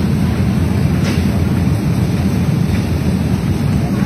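Glass-melting furnace running, a steady low rumble without a break.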